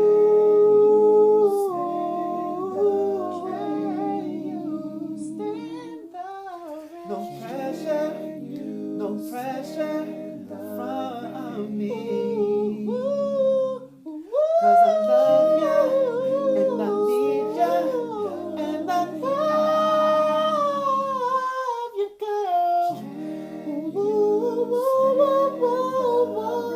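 Unaccompanied voice singing a cappella without words: hummed, sustained notes and vocal runs over a lower held harmony, with brief breaths or pauses about every seven or eight seconds.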